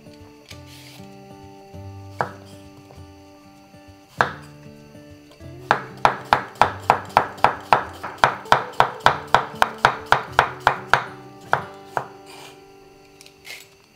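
Chef's knife slicing a Persian cucumber on a wooden cutting board. There are two single cuts first, then a quick even run of about four chops a second for roughly five seconds, each a sharp knock of the blade through the cucumber onto the board.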